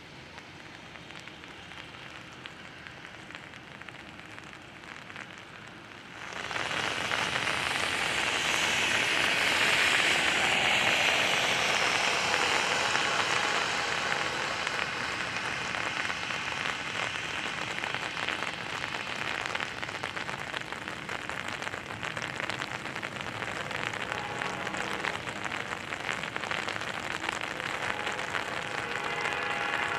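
Steady hiss of wet road and light rain. About six seconds in it jumps much louder as a car's tyres hiss past on the wet pavement. It settles into a steady wash of noise as a freight train rolls by.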